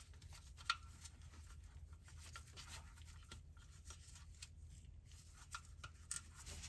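Faint handling sounds of a gloved hand working a plastic electrical connector onto an engine sensor, with a sharp click about a second in and a few softer ticks near the end.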